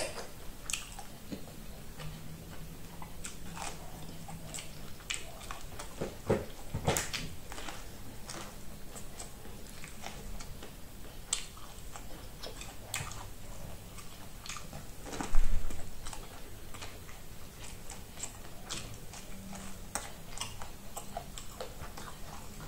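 Close-up biting and chewing of corn on the cob: many short, sharp crunches and clicks as firm kernels are bitten off the cob and chewed. A single loud low thump comes about 15 seconds in.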